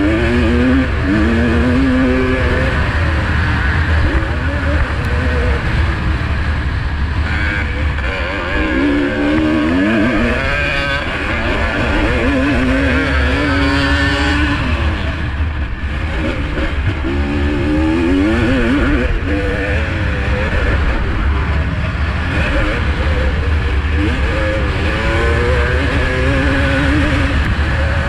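1985 Honda CR250R's single-cylinder two-stroke engine revving hard under motocross race load, its pitch climbing and dropping again and again as the throttle is worked and gears change.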